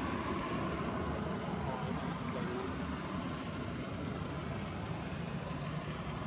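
Steady outdoor background noise: a low, even rumble with a hiss over it and no distinct events.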